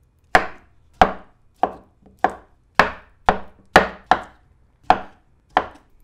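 Kitchen knife slicing through avocado and knocking on a wooden end-grain cutting board: about ten sharp chops, roughly one every half second.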